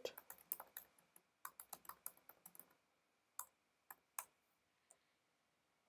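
Faint typing on a computer keyboard: a quick run of keystrokes for about the first three seconds, then a few separate key presses.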